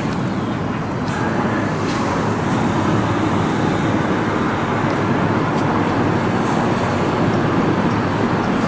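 Steady road traffic noise from vehicles on the street, getting a little louder about two to three seconds in.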